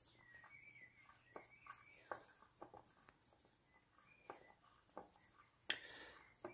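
Near silence with faint scratching and a few small clicks: fingers turning a small potentiometer on a breadboard prototype.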